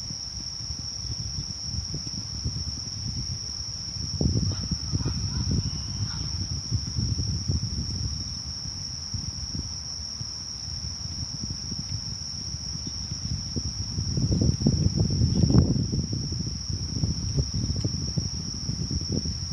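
Insects, likely crickets, singing one steady unbroken high-pitched trill. Under it runs a low rumbling noise that swells twice, about four seconds in and again near the end.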